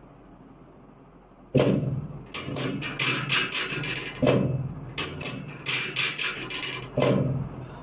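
Three heavy thuds about two and a half seconds apart, each followed by a short run of sharp clicks: chiropractic adjustment thrusts on a treatment table.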